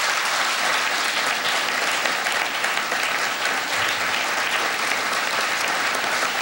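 Audience applauding steadily, the clapping of many hands blending into one continuous clatter.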